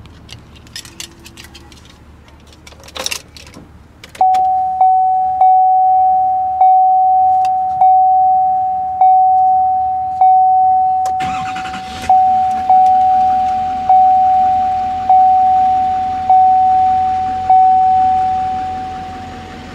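A few clicks, then a loud single-tone electronic warning chime in a 2015 Chevrolet Silverado 2500HD's cab, repeating about once a second. About seven seconds after the chime begins, the truck's 6.6-litre Duramax V8 turbo-diesel cranks, starts and settles into a steady idle under the chiming.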